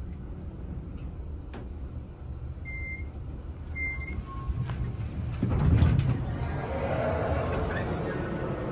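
Otis elevator car humming steadily as it arrives, with two short beeps about a second apart. About two-thirds in, a loud thump as the car doors start to slide open, then a sliding rumble as they open.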